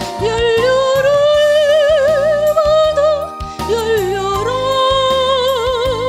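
A woman singing a Korean Christian hymn over a recorded accompaniment with bass and a steady beat, holding long notes with a wide vibrato and sliding up to a new note about halfway through.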